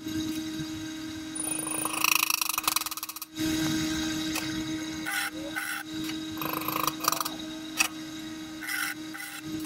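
Welding on the steel frame of a Suzuki Bandit motorcycle: a dense stretch of crackling arc about two seconds in, then shorter bursts from tack welds. Between them a hand tool rubs and scrapes on the metal, over a steady hum.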